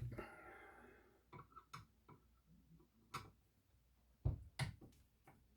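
Faint, scattered clicks and taps of hands and a tool working on the Binson Echorec's internals to free its recording disc, with a brief scrape at the start and about five sharp clicks spaced irregularly after it.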